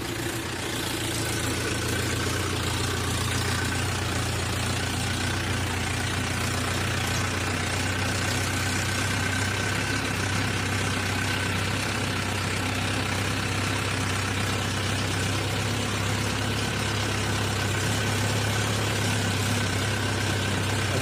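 Mahindra Yuvo 575 DI tractor's four-cylinder diesel engine running steadily under load, pulling a heavily overloaded trolley of soil, with a faint steady whine above the engine note.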